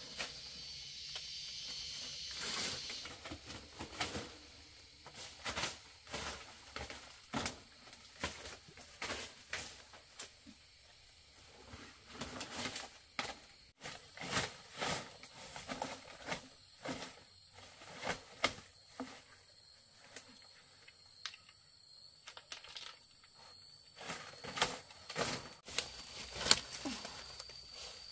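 Irregular rustling and clicking, as of handling or moving through things, with a steady high-pitched insect drone in the background at the start and again near the end.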